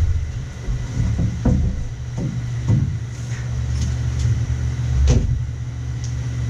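Steady low drone of the work heaters and fan running in the bus. Over it come a few knocks and rustles of plastic sheeting as people shift and step on the vapor barrier over the metal floor, the loudest about five seconds in.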